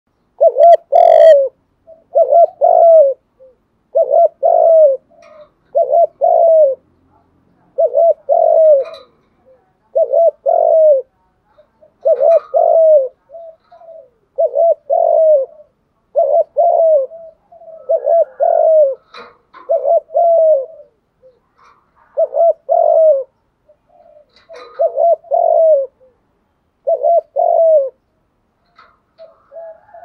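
Spotted dove cooing: a short phrase of a few low coos repeated about every two seconds, a dozen or more times.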